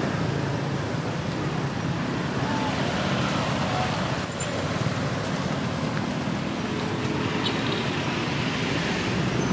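Steady road-traffic rumble, with a few faint, brief high chirps over it.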